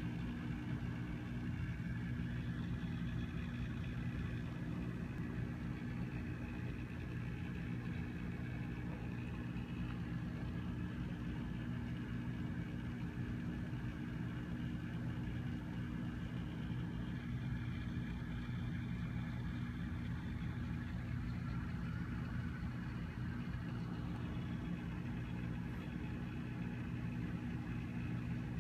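Steady low mechanical hum of running aquarium equipment, with several held low tones and a faint hiss of moving water.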